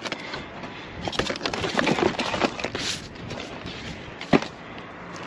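Cardboard food boxes and plastic packaging rustling and clattering as they are rummaged through by hand in a dumpster, with one sharp knock about four seconds in.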